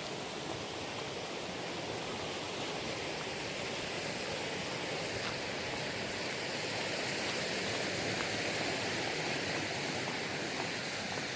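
Mountain stream water rushing steadily, growing a little louder past the middle.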